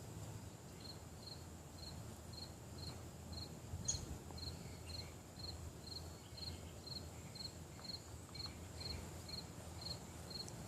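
A cricket chirping faintly, with short high chirps repeating evenly about three times a second. There is soft low rustling and one click about four seconds in.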